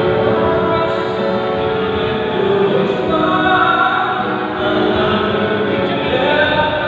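Choir singing, with long held notes.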